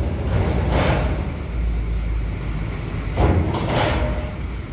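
Low, steady rumble of heavy diesel engines, with two short rushing bursts of noise: one about a second in and another about three seconds in.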